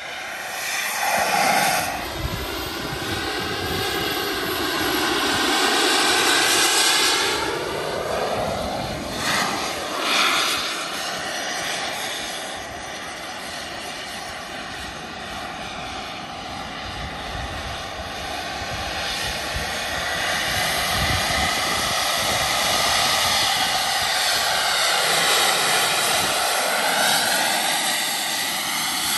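Turbine-powered radio-controlled model jet flying repeated low passes: a steady turbine whine whose pitch swings up and down as the jet comes and goes, loudest about a second in, around ten seconds in, and near the end.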